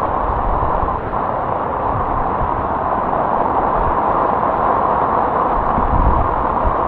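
Heavy tropical downpour pelting a flooded street, a steady loud hiss of rain, with low wind rumble on the microphone about six seconds in.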